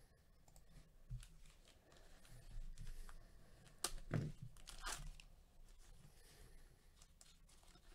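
Foil trading-card pack wrapper being torn open by hand, with crinkling of the foil; the loudest rips come about four to five seconds in.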